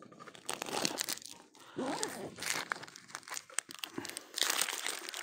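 Plastic bag crinkling and rustling in irregular bursts of sharp crackles, as food is handled out of it for feeding.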